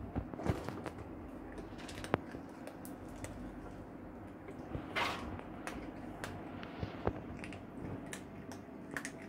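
Cats eating dry kibble from a plastic storage bin: irregular crunching and clicking of the pellets, with a louder rustle of shifting kibble about five seconds in.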